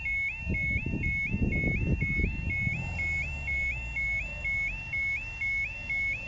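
UK level crossing warning alarm sounding its repeating two-tone yodel, about two cycles a second, warning of an approaching train. Low rumbling underneath in the first half.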